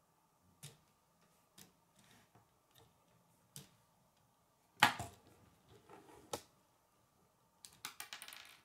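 Plastic K'nex helicopter parts clicking and knocking as the rotors are spun by hand. Scattered sharp clicks, one louder knock a little past halfway, and a quick rattle of clicks near the end.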